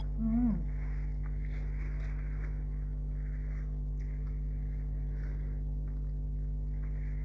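A woman's short closed-mouth "mm" of tasting at the start, falling in pitch. Then faint, irregular soft chewing over a steady low electrical mains hum.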